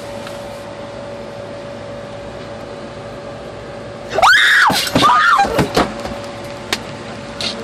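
Steady airliner cabin drone with a constant hum. About four seconds in, two short high squeals each rise and fall in pitch, followed by a few knocks.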